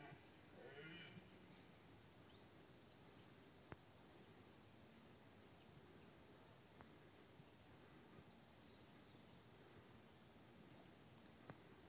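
Faint, quiet rural background with a short, high chirp repeating about every one and a half seconds, seven or eight times.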